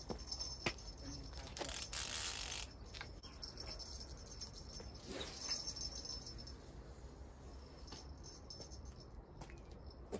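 Quiet sounds of a heavy beachcasting rod being cast out with a baitcasting reel: a brief rushing swish about two seconds in and a shorter one about five seconds in, among light clicks and knocks of tackle.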